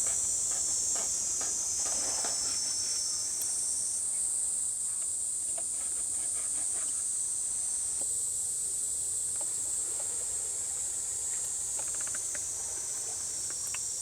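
Steady high-pitched chorus of insects singing, with a few faint clicks and clinks.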